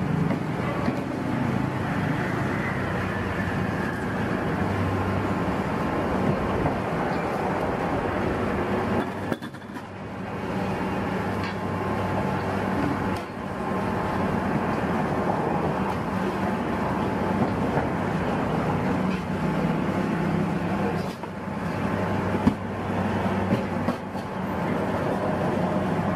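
Steady rumble of vehicle engines, with a knife scraping and cutting the husk of a young coconut.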